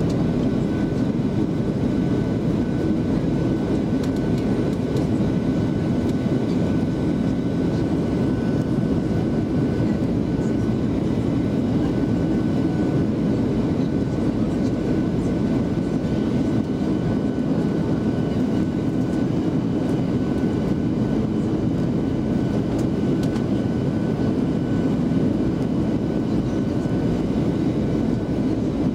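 Steady cabin drone of a Boeing 737-700 on descent, heard from a window seat beside the wing: the low rush of airflow and the CFM56-7 turbofan blend into an unchanging roar with a faint thin whine held above it.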